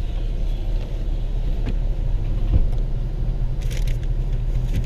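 Car's low, steady engine and cabin rumble heard from inside the vehicle while it waits in a slow line, with a faint brief rustle near the end.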